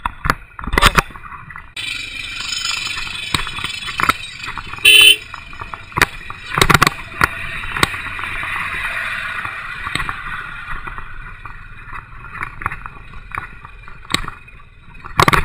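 Royal Enfield single-cylinder motorcycle riding over a rough, rocky dirt track close alongside a lorry: steady engine and road noise with scattered knocks and rattles, and one short horn toot about five seconds in.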